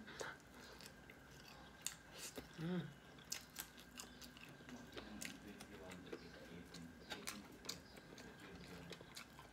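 Close-up mouth sounds of a person eating chicken curry and rice: soft wet chewing with scattered sharp clicks and lip smacks. About three seconds in there is a short hummed "mm".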